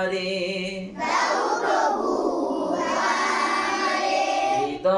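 Unaccompanied singing of a Bengali devotional song: a man holds the last note of a line for about a second, then many voices sing the refrain together until near the end.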